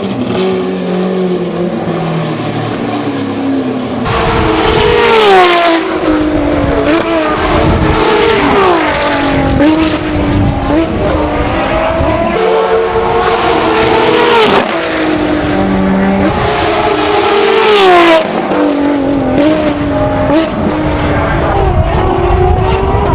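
A supercar engine running loud, then accelerating hard through the gears: its pitch climbs and drops back at each upshift, about five times.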